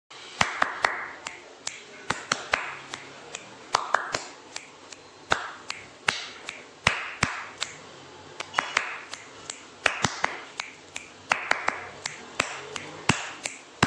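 Paint-splat sound effects: a rapid, irregular series of sharp wet smacks, several a second, each trailing off in a short hiss.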